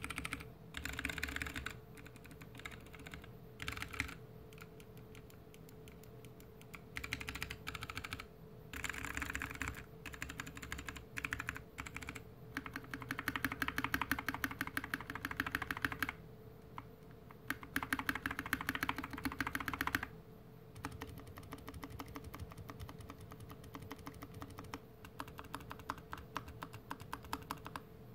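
Typing on a GK61X mechanical keyboard with clicky Kailh BOX Mute Jade switches in a stainless steel plate and plastic case, with DSA keycaps, sitting on a desk mat. The keystrokes on modifier and letter keys come in quick runs of clicks broken by slower, sparser presses.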